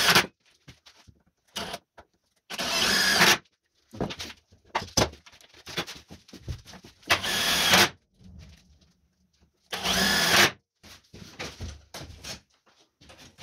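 Electric drill running in three short bursts of under a second each, working on sheet-metal corner pieces, with light clicks and knocks of handling between the bursts.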